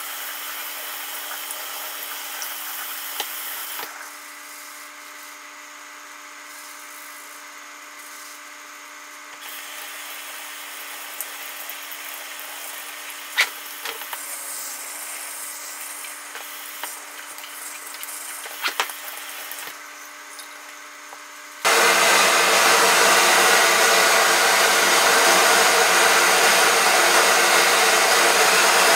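Tap water running and splashing over a plastic cooling-fan filter as it is washed by hand in a sink, with a few sharp clicks. Near the end a hair dryer switches on abruptly and runs steadily and loudly, drying the filter.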